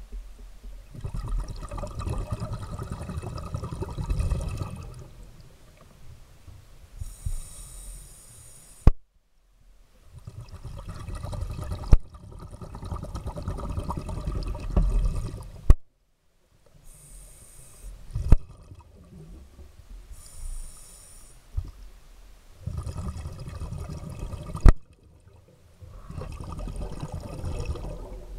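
Underwater recording of a diver's breathing and exhaled bubbles, heard as stretches of low rumbling bubbling with intermittent hiss, muffled through the camera housing. Sharp clicks and short dead silences cut into it several times where the footage is spliced.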